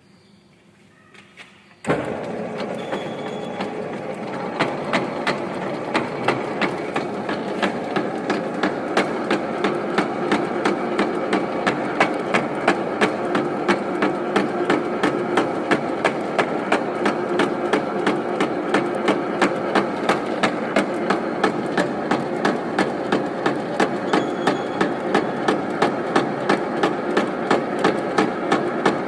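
Centre lathe switched on about two seconds in and running at slow speed in back gear for drilling: a steady machine run with a regular knock about three times a second.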